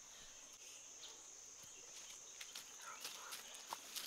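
Steady high-pitched insect chorus in the woods, with a few light clicks of pebbles shifting in the second half.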